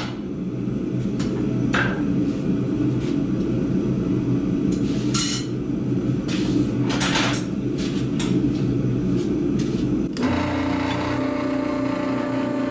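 Steady low drone of running forge-shop machinery, with a few sharp metal clinks. About ten seconds in, background music with steady tones starts over the drone.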